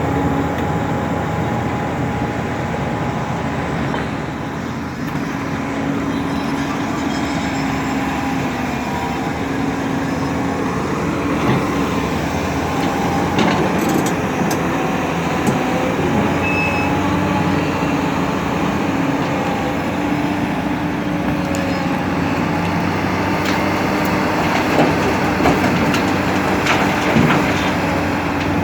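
Excavator's diesel engine running steadily, with a few short clanks and knocks partway through and near the end.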